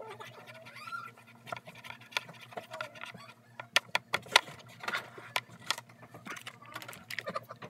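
Scattered sharp clicks and light knocks of hands handling a plate and small objects on a tabletop, irregular and coming thicker about halfway through, over a steady low hum.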